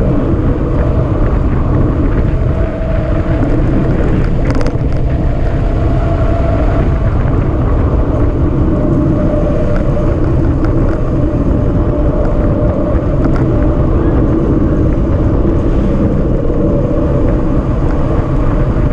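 Steady rushing of wind and road noise from travelling downhill at speed, loud and unbroken, with a faint hum running through it.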